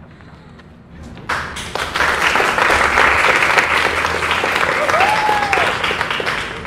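A small group of people clapping and applauding, breaking out suddenly about a second in and going on strongly. A short note rising and falling in pitch sounds through the applause near the end.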